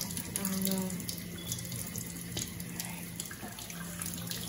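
Kitchen tap running into a stainless steel sink: a steady rush of water, with a low steady hum underneath and a few light clicks.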